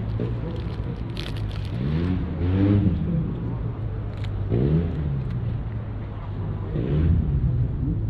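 Diesel coach engines running with a steady low rumble; three times an engine revs up and falls back, about two, four and a half, and seven seconds in.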